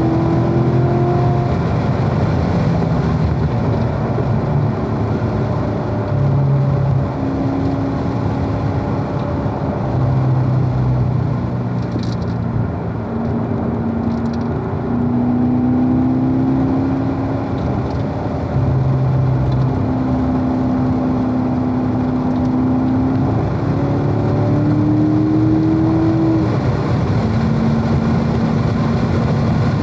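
Corvette's V8 engine under hard driving at speed, revs climbing and dropping again and again through shifts and corners, over steady wind and road noise.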